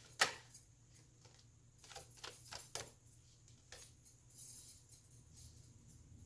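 Tarot cards being handled on a table: a sharp tap near the start, a quick run of taps about two seconds in, another tap near four seconds, then a soft sliding rustle.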